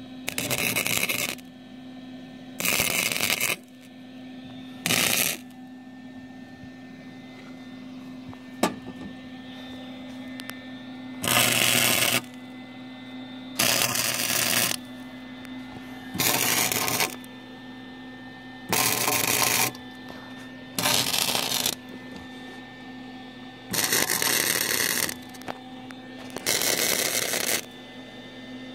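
Arc welding on a car exhaust pipe with a Lincoln Electric welder: about ten short bursts of arc noise, each around a second long, laid down one after another as stitch welds. A steady hum runs underneath in the gaps between the bursts.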